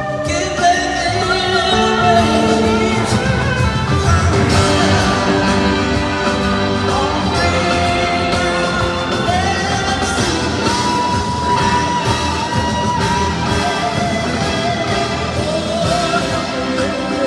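Live rock band playing: electric guitars, organ and drums.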